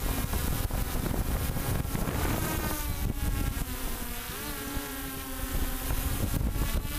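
Multicopter's electric motors and propellers buzzing close to the microphone, with wind buffeting the microphone. About two seconds in, the pitch of the motor whine starts shifting up and down as the motor speeds change.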